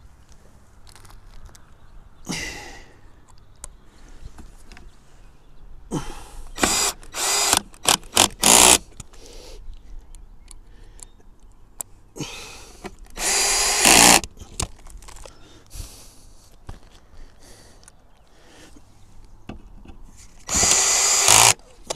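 Cordless drill/driver running screws into the base of a Starlink dish mount, in several short runs rather than one steady pull: a brief one about two seconds in, a quick stutter of bursts around the middle, a longer run a little later, and another just before the end.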